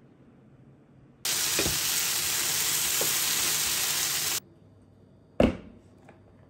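A steady hiss lasting about three seconds that starts and stops abruptly, followed by a single sharp click.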